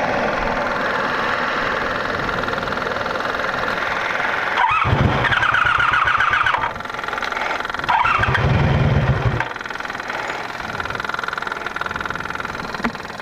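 1985 Honda Magna 700's V4 engine being cranked on its starter twice, about two seconds each time, roughly four and a half and eight seconds in. The bike keeps cutting out because its fuel pump is dying and, in the rider's words, not pumping the fuel right.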